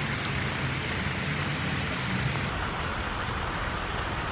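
Steady outdoor rushing noise with a low rumble, from wind on the microphone and distant traffic.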